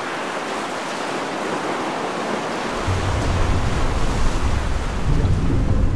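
Surf washing over a rocky coral-reef shore, a steady rushing. About three seconds in, a deep low rumble comes in under it.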